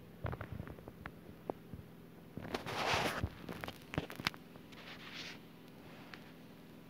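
Handling noise: scattered light clicks and taps, with a short rustle of packaging about two and a half seconds in and a softer one about five seconds in, over a faint steady hum.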